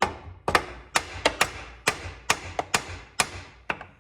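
A hammer striking a stuck part on an old Lawn-Boy mower, about a dozen sharp blows, roughly three a second, each ringing briefly, to drive out a part that has no bolts holding it.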